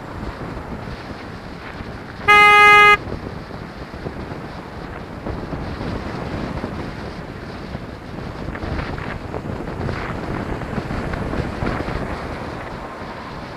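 A horn sounds once, a single steady tone about half a second long, a couple of seconds in. Under it, steady wind rush on the microphone and traffic noise from riding through traffic.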